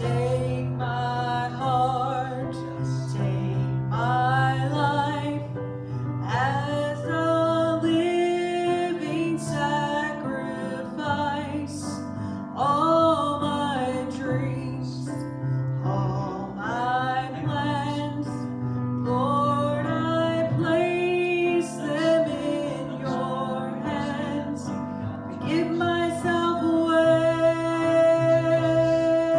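A voice singing a slow gospel song with vibrato over instrumental accompaniment.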